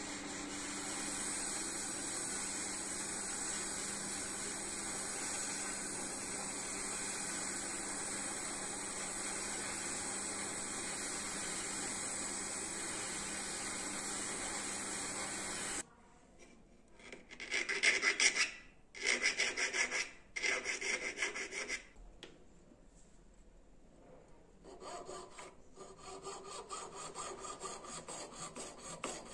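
A jeweller's gas torch hissing steadily as it heats a silver ring setting; about halfway through the hiss cuts off suddenly and a jeweller's saw cuts through silver in several runs of quick rasping strokes, the later ones quieter.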